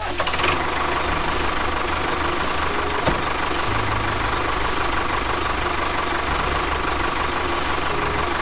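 A small motor running steadily with a dense buzzing whir.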